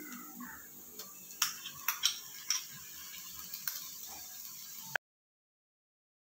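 Wooden spatula tapping and scraping in a nonstick frying pan as chopped tomatoes are added to frying onions: a handful of sharp light clicks over a faint steady hiss, then the sound cuts off to dead silence about five seconds in.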